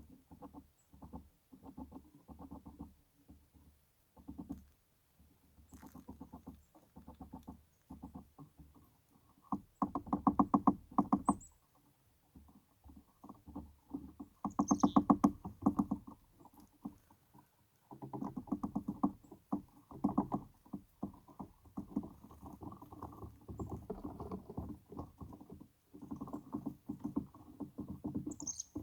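Chickadees giving a few brief high calls, one a quick falling note, over bursts of rapid low crackling rustle close to the microphone.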